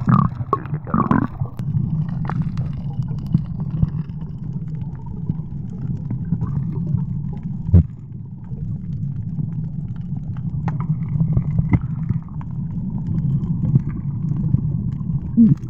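Steady, muffled low rumble of the sea heard through a camera held underwater, with scattered faint clicks and a sharper knock about eight seconds in.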